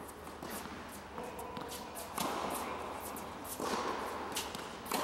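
Tennis ball struck with a racket three times, a little over a second apart, each hit echoing in the indoor hall, with lighter taps between.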